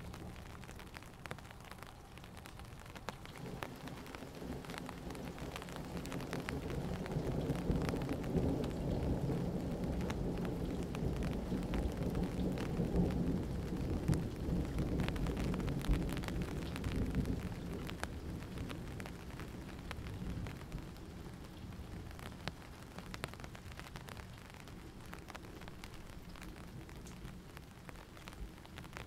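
Steady rain with single drops ticking on a surface. A long low rumble of thunder builds a few seconds in, is loudest through the middle, and dies away over the last third.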